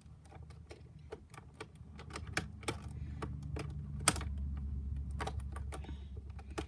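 Rapid small clicks and clacks of plastic speed-cube pieces being handled and pushed into place while the cube is reassembled, with one sharper click about four seconds in, over a low rumble.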